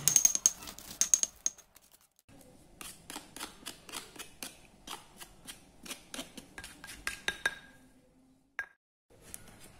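A stone pestle grinding wet spice paste in a stone mortar, then a spoon scraping the paste together against the stone in a run of short strokes, two or three a second, ending with a single click.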